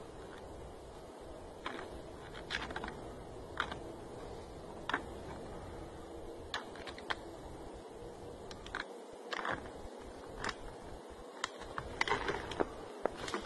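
Addax horns clacking together as two animals spar: irregular sharp clicks, a second or more apart at first and coming faster near the end.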